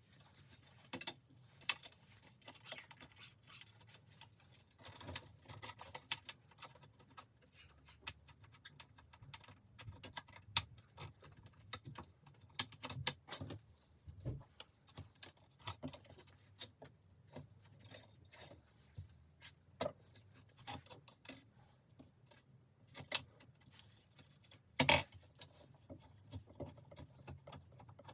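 Irregular metallic clicks and light jingling as a spoke key turns the spoke nipples loose and the steel spokes of a 1950 Raleigh's rear wheel are worked free, with one sharper knock near the end.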